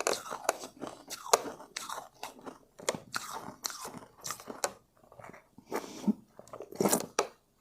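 Close-up chewing and crunching of refrozen shave ice, with many sharp crackling bites and short runs of grinding chews, easing off briefly about two-thirds of the way through.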